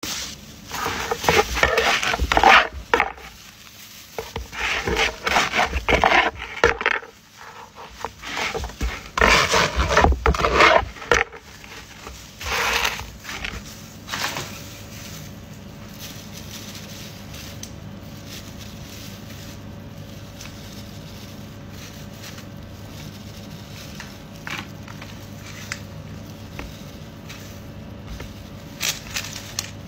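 A knife sawing through crusty Italian loaves on a wooden board, the crust crackling, in four or five loud runs of scraping strokes over the first dozen seconds. After that comes a steady low room hum, with a few light clicks near the end.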